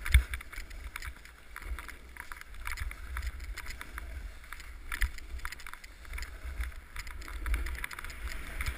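Snowboard sliding and scraping over packed snow, with many short scratches and ticks from the board, and wind rumbling on the microphone. A sharp knock comes just after the start.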